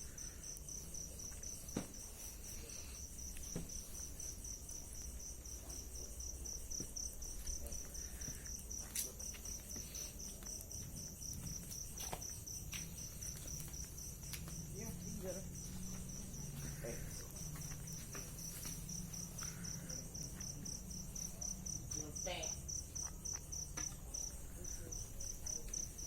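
A cricket chirping steadily at night in a fast, even, high-pitched pulse, with a few faint clicks and a low murmur under it.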